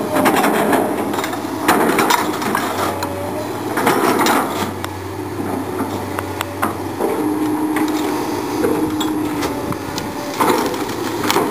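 Komatsu PC220 diesel excavator running steadily, its engine and hydraulic tones shifting in pitch as the bucket works through brush. Several sharp cracks and knocks break through as branches snap and the bucket strikes.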